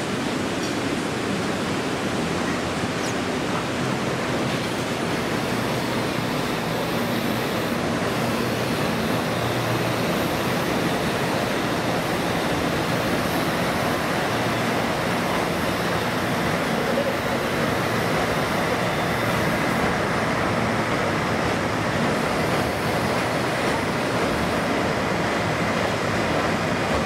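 Steady roar of a fast mountain river rushing over boulders in white-water rapids.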